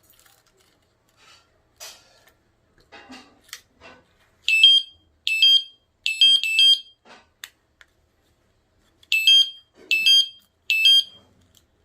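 Electric-scooter alarm unit giving short, high electronic chirps: four in quick succession about four and a half seconds in, then three more near the end. Light clicks and knocks come before the chirps.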